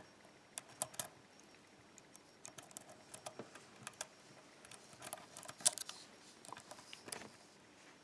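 Lock pick working the pin stacks of an ASSA five-pin oval cylinder under light tension: scattered small metallic clicks and scrapes, the sharpest a little over five and a half seconds in.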